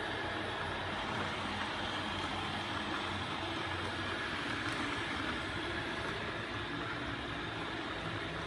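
iLife A4 robot vacuum running in auto-clean mode: a steady whir of its suction motor and brushes that holds an even level throughout.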